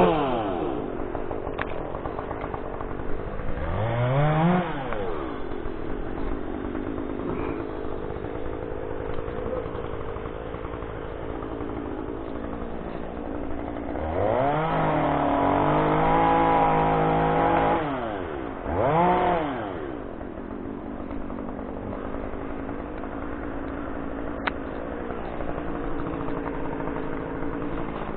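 Echo T2511 top-handle two-stroke chainsaw idling, revved briefly about four seconds in, held at high revs for about four seconds past the middle, and given one more short rev before dropping back to a steady idle.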